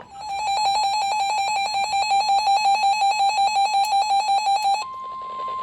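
A weather alert radio's alarm sounding a rapid, steady pulsing beep. About four and a half seconds in it switches to the steady 1050 Hz warning alarm tone of the NOAA Weather Radio broadcast, which signals that a severe weather warning is about to be read.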